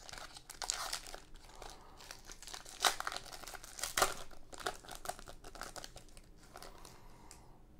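Glossy wrapper of a Donruss football card pack crinkling and crackling as it is torn open, with the sharpest crackles about three and four seconds in, dying away near the end.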